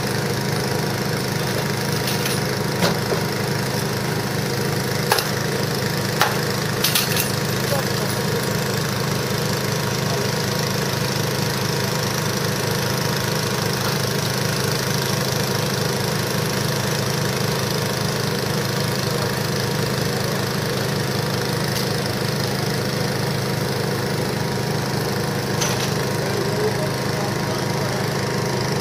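An engine running steadily at a constant speed, with a fast even pulse. A few sharp knocks and clatters come in the first seven seconds or so.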